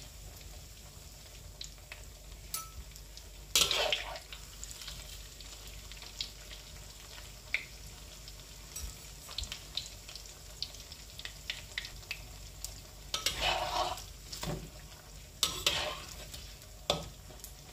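Batter-coated tempe slices frying in hot oil in a wok: a steady faint sizzle with small crackles. A metal spatula stirs and scrapes through the pieces in the wok several times, loudest about four seconds in and again from about thirteen to seventeen seconds in.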